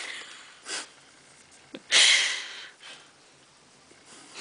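Breath noise close to the microphone: a short sniff-like puff, then a louder, half-second huff of breath about two seconds in, with a faint click just before it.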